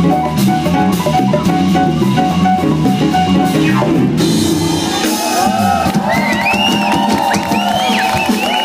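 Live band with electric bass and drum kit playing a baião groove, which stops about four seconds in. An audience then cheers and whistles, with many whistles rising and falling.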